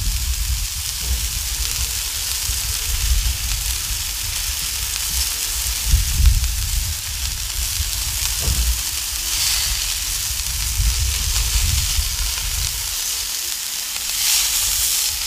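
Ground-beef burger balls and bacon sizzling on a hot Blackstone flat-top griddle set to high: a steady frying hiss over a low rumble. The sizzle swells briefly twice, the second time as a burger ball is rolled over on the steel to sear its outside.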